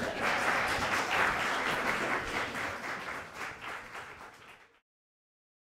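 Live audience applauding at the end of a stage sketch, the clapping fading away over a few seconds and cutting off to silence near the end.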